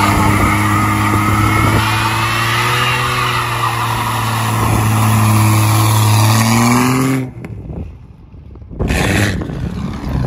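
Straight-piped Jeep Grand Cherokee 4.0 straight-six held at high revs for a burnout: a loud, steady exhaust note, with a tyre spinning on the pavement, that I think was only one wheel. About seven seconds in the sound cuts off abruptly. After a short quiet gap the engine is heard again, lower, as the Jeep pulls away.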